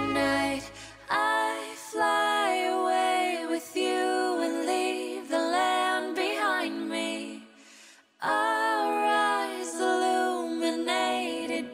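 Music: a woman singing slow, held phrases with little or no accompaniment, breaking off briefly about eight seconds in.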